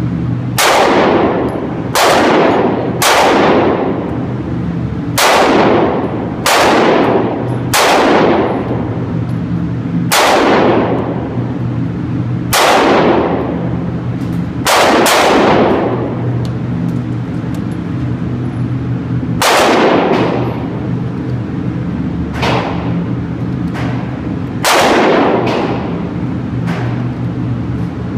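Smith & Wesson M&P Shield 9mm pistol fired in a slow string of about a dozen shots, one to three seconds apart, each shot ringing out with a long echo in an indoor range. The firing stops a few seconds before the end.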